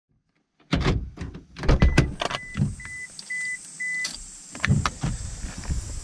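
A car door being opened from inside, with clunks and thumps of the latch and handling, starting under a second in. The car's warning chime beeps five times, about twice a second, and a steady hiss sets in as the door opens.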